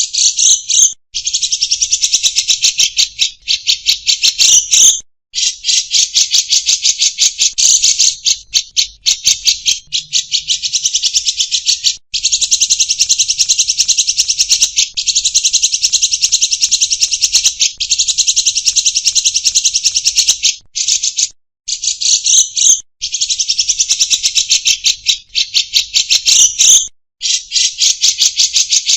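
Caged songbird in full song, giving rapid, buzzy rattling trills in long runs of several seconds with brief pauses between.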